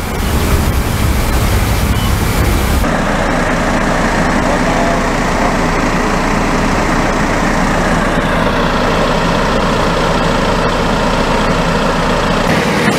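An engine running steadily at an even pitch, with heavy low rumble in the first three seconds.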